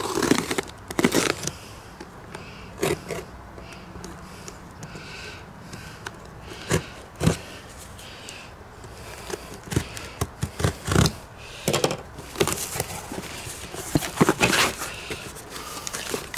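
A cardboard box being opened: a blade slitting the packing tape along the seam, then the flaps pulled apart. Scraping and crackling cardboard and tape with scattered taps and knocks, busiest near the end as the flaps come open.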